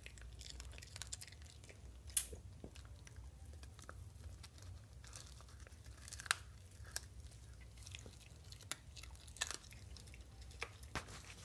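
Small dog chewing a roasted corn cob, biting the kernels off it with irregular, sharp crunches.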